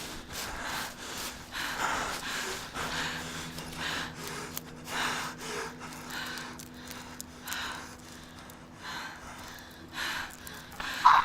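A person breathing heavily and unevenly, with short gasping breaths in and out, over a low steady hum. The breaths grow a little fainter in the last few seconds.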